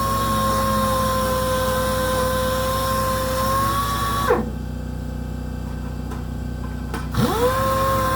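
Power sander running with a steady high whine, released about four seconds in so it winds down, then triggered again about three seconds later and spinning back up to full speed. A low hum continues underneath during the pause.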